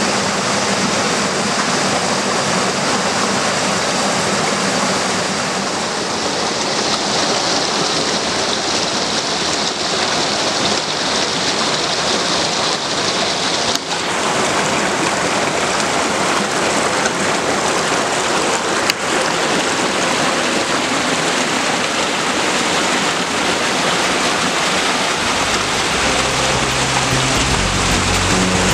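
Shallow rocky river rushing over stones: a steady, even rush of water. Low music comes in near the end.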